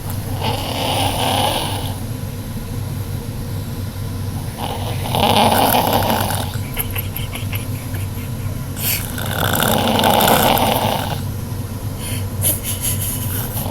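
A sleeping person snoring loudly in long, rasping breaths, three snores about four to five seconds apart, with a fourth starting near the end.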